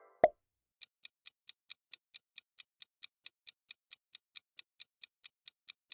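A short pop, then a countdown-timer tick sound effect ticking evenly at about four and a half ticks a second.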